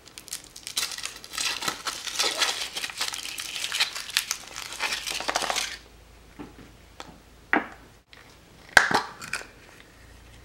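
Foil wrapper crinkling as it is peeled off a Yowie chocolate egg, for about six seconds. Then a few separate sharp cracks and clicks, the loudest near the end, as the chocolate shell is broken and the plastic toy capsule inside is pulled open.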